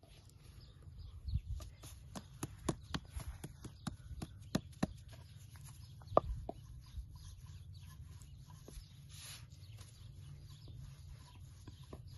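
Wooden rolling pin rolling out dough on a round wooden board, making a run of sharp irregular clicks and knocks, the loudest about six seconds in, thinning out in the second half.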